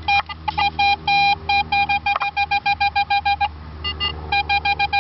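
Garrett AT Pro metal detector giving a rapid string of short beeps at one steady pitch, about five a second, pausing about three and a half seconds in and then starting again. The beeps are a strong return from a buried target, a coin being pinpointed.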